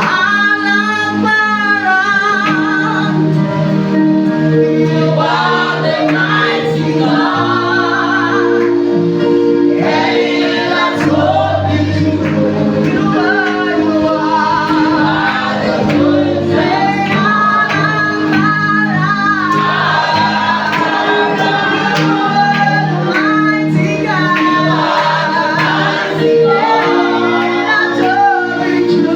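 Church praise team singing a gospel worship song together, the voices carried over long held chords of instrumental accompaniment.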